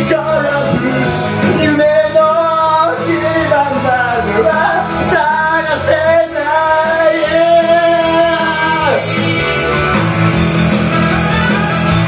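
A man singing karaoke into a handheld microphone over a loud backing track. Partway through he holds one long note with vibrato, which falls away about nine seconds in, leaving the backing music playing.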